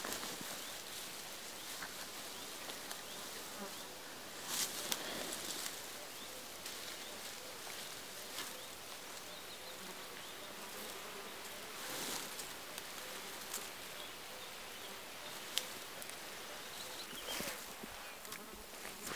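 A flying insect buzzing close by, a faint steady hum that wavers on and off, with a few brief rustles in the grass.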